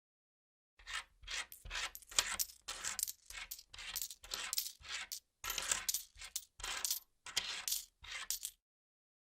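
Coins being counted: handfuls of metal coins clinking and sliding against one another in a quick run of short bursts. It starts about a second in and pauses briefly near the end.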